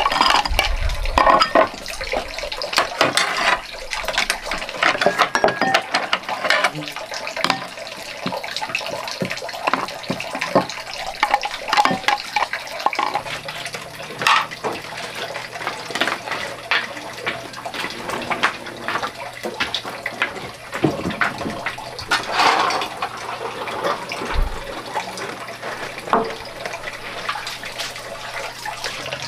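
Running water with frequent clinks and knocks of dishes being washed. A low steady hum comes in about halfway through.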